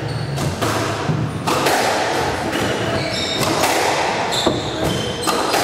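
Squash rally: a string of sharp knocks as the ball is struck by the rackets and hits the court walls, with short sneaker squeaks on the wooden floor in the middle, all echoing in the enclosed court.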